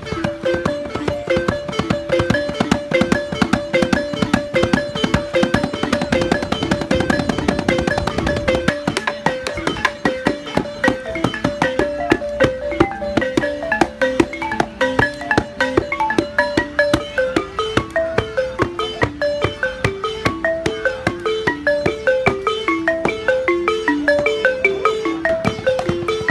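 Kora plucked in a repeating, stepping melody, with a drum struck hard and fast with sticks. The heavy drumming eases about nine seconds in, and lighter stick strikes continue over the kora.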